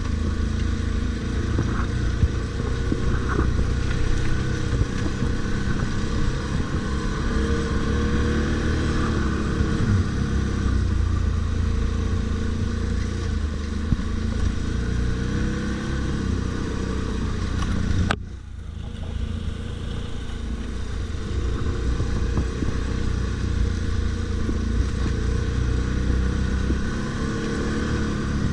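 ATV engine running under way off-road, its note rising and falling with the throttle. About two-thirds of the way through the sound drops away suddenly, then builds back up.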